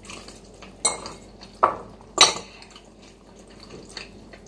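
Metal fork clinking and scraping against a white ceramic bowl of noodles while eating: three short sharp clinks within about a second and a half, the loudest a little past two seconds in.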